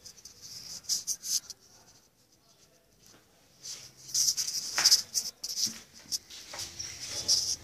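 Scraping, rustling and knocking handling noises as a kettle-style charcoal grill is lifted onto a steel-tube stand, with the rustle of a handheld phone. The noises come in bursts, busiest about a second in and again from about four seconds on, with one sharper knock near five seconds and a lull in between.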